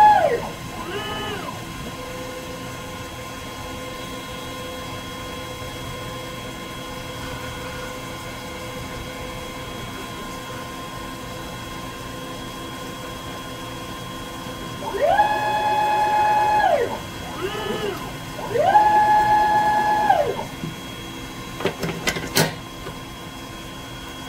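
Dyna Myte DM3000 CNC lathe drilling Teflon stock. The axis drive motors whine up to a steady pitch and back down on a rapid move, then hold a quiet steady tone while the drill feeds slowly into the spinning part. About fifteen seconds in, three more whining moves follow as the drill pulls back, and near the end the tool turret indexes to the next tool with a few clicks and a clunk.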